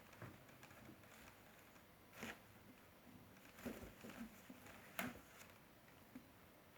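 Faint, scattered scuffles and soft taps of a kitten playing with a fish, the clearest about two, three and a half and five seconds in.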